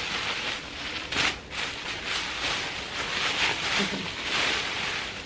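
Plastic bags and packaging crinkling and rustling as clothes are pulled out and unwrapped: a steady crackly rustle.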